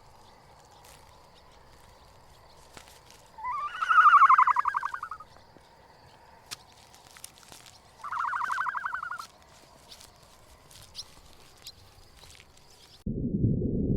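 An animal calls twice, each call a pulsing sound about a second long, the first rising in pitch at its start, over a faint background of small ticks and a steady high hum. Near the end a loud low rumbling noise cuts in suddenly.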